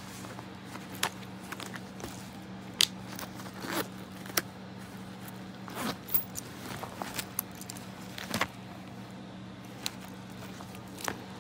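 A black leather-look Angel Kiss handbag being handled and opened: rustling material and scattered clicks and clinks of its metal hardware as a hand rummages inside. A steady low hum runs underneath.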